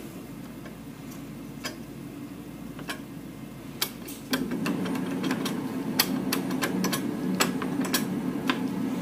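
Scattered light clicks and taps of hand tools and small metal parts being handled while fitting ignition wiring under a car's hood, a dozen or so single ticks at irregular spacing. A steady low hum joins about four seconds in.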